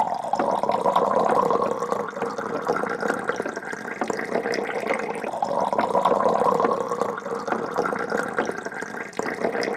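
A stream of liquid running and splashing steadily, as when liquid is poured or runs from a tap into a vessel, swelling twice.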